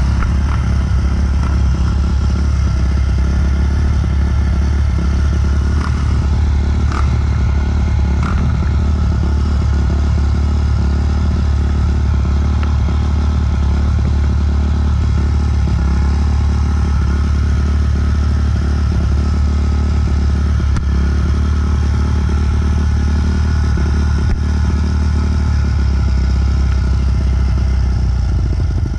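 Dirt bike engines idling steadily, the nearest a Kawasaki KDX220 two-stroke.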